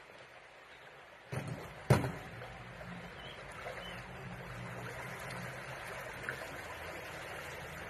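Two sharp knocks close to the microphone about a second and a half and two seconds in, the second much the louder, then a steady low rumble over the faint wash of a shallow stream.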